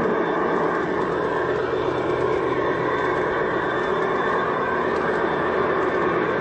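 A G-scale model diesel locomotive running, heard close up from a camera riding on the train. Its onboard sound unit plays a steady diesel-engine drone over the rolling noise of the train on the track.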